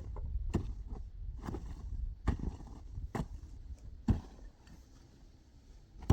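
Repeated blows of a hand tool: five sharp strikes about a second apart, then a pause of about two seconds.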